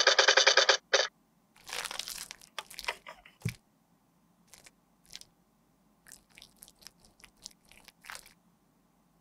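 A fast-pulsing buzz from a motorised toy Ferris wheel cuts off about a second in. Close-miked handling of a lipstick and its case follows: a crunchy rustle, a few sharp clicks with one soft thump, then light scattered taps and rubbing as the lipstick is swatched on skin.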